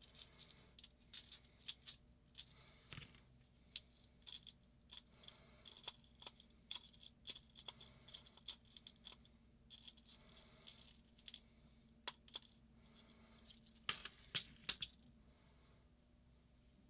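Small metal screws and parts clinking and rattling in irregular bursts of light clicks while being picked through by hand, with a cluster of sharper clinks about fourteen seconds in before they stop.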